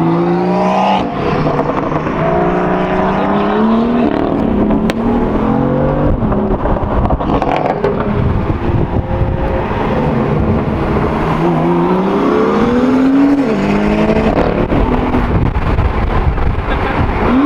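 BMW M2 F87's turbocharged straight-six with aftermarket downpipes, revving up and dropping back several times under hard acceleration, with sharp crackles from the exhaust around the middle.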